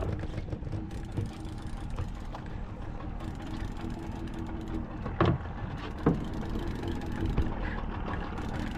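Steady low rumble of a small fishing boat on open water, with a faint hum for a few seconds in the first half and two sharp knocks a little after halfway.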